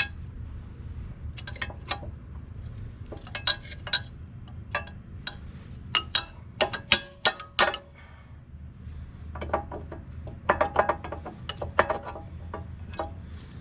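Steel hand tools and parts clinking and tapping on a skid steer's Quick-Tach coupler, in irregular sharp metal clicks that come in quick clusters, over a low steady hum.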